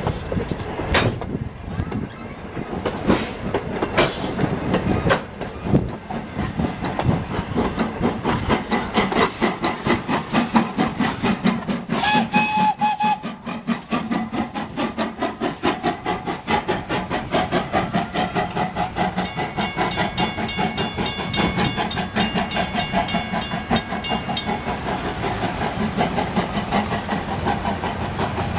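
Steam train's wooden passenger coaches rolling past at close range, their wheels clicking in a steady clickety-clack over the rail joints. Just before halfway through, the steam locomotive's whistle gives one short blast of about a second as it nears a level crossing.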